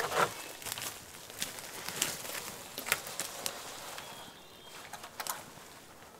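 Pack goat moving through dry brush and fallen twigs, with scattered crackles and snaps of breaking sticks and rustling leaves that thin out after about four seconds as it moves away.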